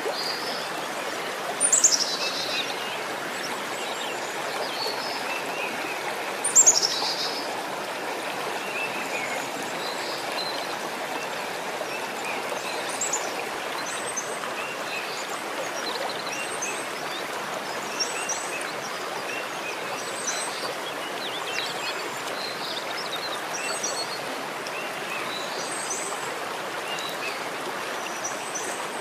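Steady rush of running water, with small bird chirps scattered throughout. Two louder high calls sweep down in pitch, about two seconds in and again at about seven seconds.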